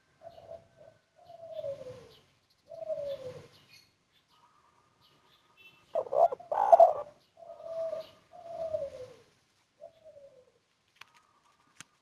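Spotted dove (tekukur) cooing: a series of short, soft coo notes, each sliding down in pitch, with a louder, fuller phrase about six to seven seconds in. This is the bird's 'kuk 1' song type, with one clear 'kuk' note.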